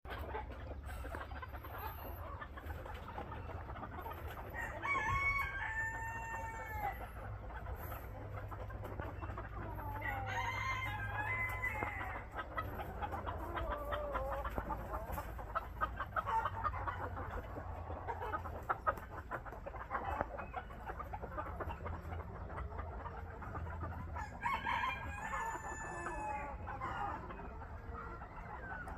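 White Phoenix rooster crowing three times, each crow about two seconds long, with short clucks between the crows.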